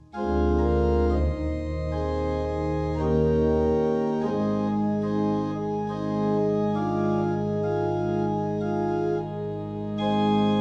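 Organ playing slow, sustained chords over a held low bass note. The sound drops out briefly at the very start, and the bass note changes about four seconds in.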